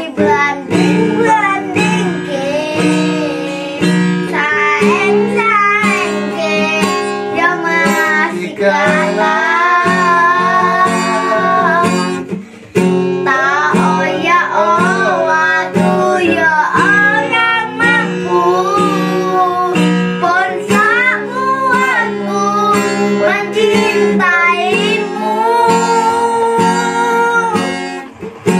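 A child singing a melody to an acoustic guitar, with a brief break about twelve seconds in.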